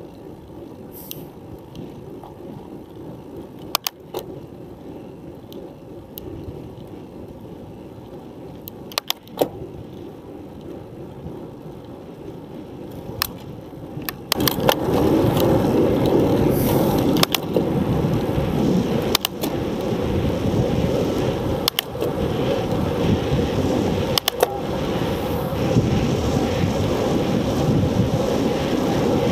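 Bicycle riding noise picked up by a camera zip-tied to the handlebars: a low rumble of tyres on asphalt with sharp clicks and knocks now and then. About halfway it suddenly gets much louder, turning into a strong rush of wind and road noise as the bike gathers speed downhill.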